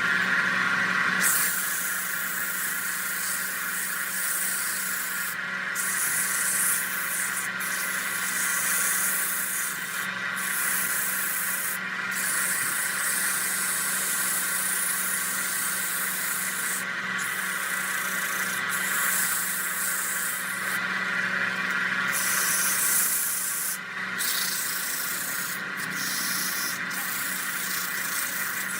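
Wood lathe running with a steady motor hum while a spinning redwood workpiece is worked by hand, giving a high, hissing, rubbing scrape like sanding. The scrape breaks off briefly several times as the tool or paper is lifted and put back.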